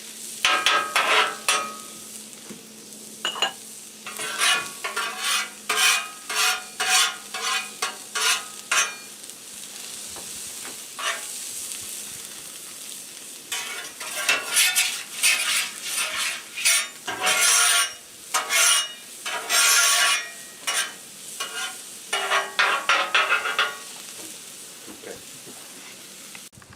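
Chopped onion and carrot sizzling in oil on a Blackstone flat-top griddle, with a steady hiss throughout. Metal spatulas scrape and clack against the steel griddle top in repeated bursts of quick strokes as the vegetables are stirred.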